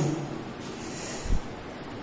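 Quiet steady room hiss, with one brief low thump a little past halfway through.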